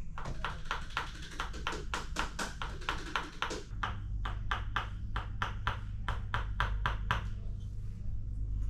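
Tok Sen tapping: a wooden mallet striking a wooden wedge in a fast, even rhythm of about four strikes a second, over a low steady hum. The strikes stop about seven seconds in.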